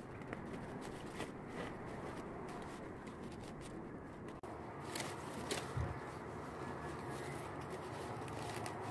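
Large leaves rustling and crinkling as they are handled and tied onto a woven waistband, with scattered sharp clicks and a low thump about six seconds in. The sound drops out abruptly for an instant a little over four seconds in.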